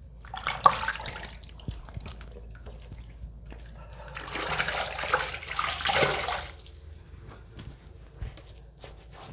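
Water splashing as foaming cleanser is rinsed off a face with handfuls of water at a sink: a short bout about half a second in and a longer, louder bout from about four to six and a half seconds, with light drips between.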